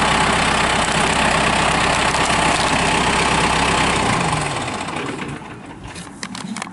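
Kubota M6060 tractor's four-cylinder diesel engine idling steadily, then winding down and shutting off about four seconds in. A few light clicks follow near the end.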